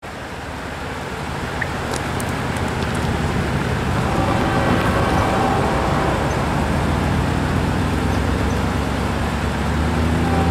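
An approaching freight train led by a GE ES44AC diesel locomotive: a low engine rumble that grows steadily louder as it nears, with the engine's low tones coming through more clearly in the second half.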